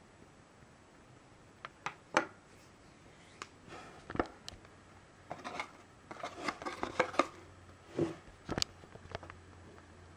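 Small plastic clicks and knocks as the opened two-piece plastic casing of a handheld UV lamp is handled and its halves are set down on a wooden table, with a busy run of small clicks in the middle and a few sharper knocks.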